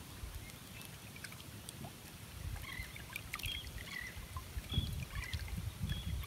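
Small waves lapping and sloshing against the boat close to the microphone, with an uneven low rumble. Short high chirps and a few clicks come in from about two and a half seconds in.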